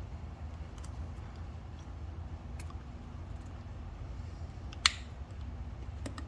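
Faint handling clicks as a small bulb socket is worked out of a Yamaha TW200's speedometer housing, with one sharp click about five seconds in as it comes free, over a steady low hum.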